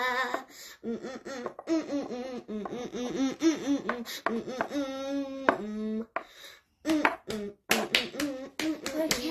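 A voice doing playful wordless sing-song vocalizing, laughter-like, in quick rising-and-falling syllables, ending in a held note, for a dancing toy figure. Near the end, a run of hand claps.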